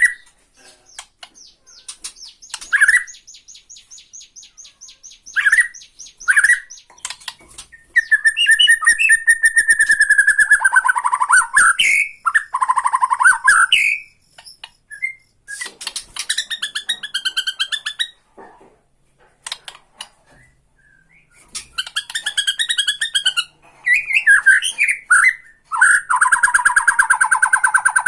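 White-crowned shama (Bornean murai batu) giving its 'ketrekan' rattle: long runs of rapid clicking pulses, several seconds each, between short sharp whistled notes.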